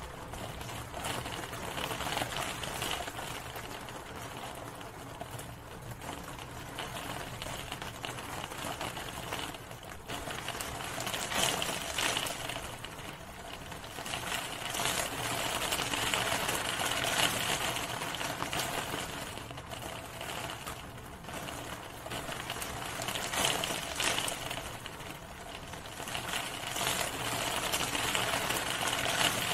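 Steady rain with a dense patter of drops striking a hard surface, swelling and easing every few seconds.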